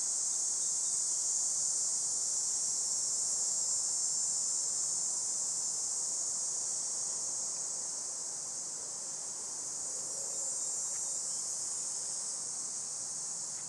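Steady, high-pitched chorus of insects, such as crickets, droning continuously without a break.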